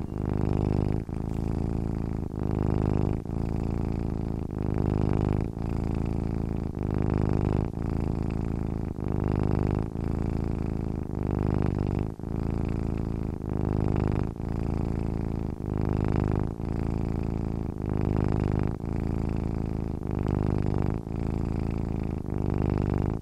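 Domestic cat purring steadily and close up, the rumble swelling and dipping with each breath in and out, about once every two seconds.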